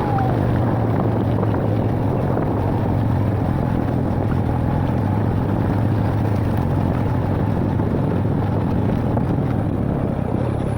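An engine running steadily at an even speed, a continuous low drone with noise over it.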